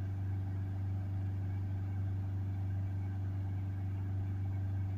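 Ford 2.0 TDCi four-cylinder diesel engine held steady at about 3000 rpm, heard from inside the car. The engine is being kept at high revs to clear a diesel particulate filter just treated with cleaning fluid.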